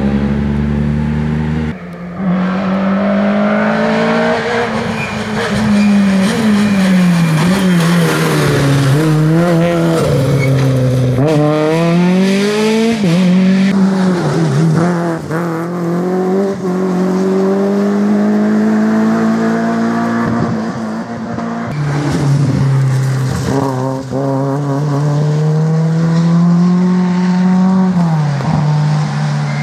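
Rally car engines accelerating hard along a loose gravel stage. The revs climb and drop again and again as the cars shift through the gears. Near the end a car is heard coming closer, its engine note rising steadily.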